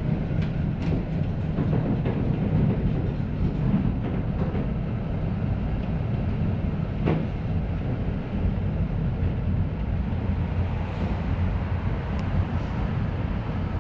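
Tram running along a street, heard from inside the passenger compartment: a steady low rumble of motors and wheels on the rails, with occasional sharp clicks and knocks, the clearest about seven seconds in.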